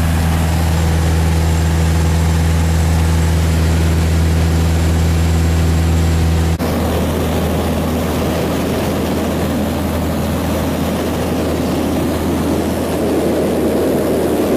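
Single-engine light plane's piston engine and propeller droning steadily, heard inside the cabin. About halfway through the sound changes abruptly to a noisier rush with a weaker hum underneath.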